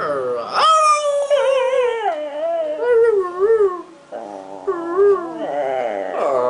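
Small dog howling and whining in long, wavering, sing-song notes, the 'talking' kind of howl. The notes fall and warble in pitch, break off briefly about four seconds in, then resume.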